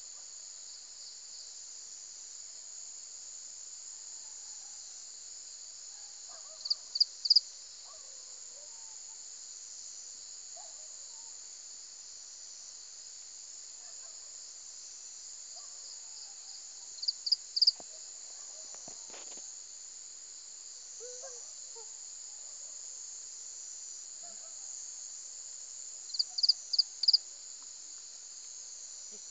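Steady high drone of insects, broken by loud groups of three or four quick high chirps that come back roughly every nine to ten seconds, with faint scattered calls lower down.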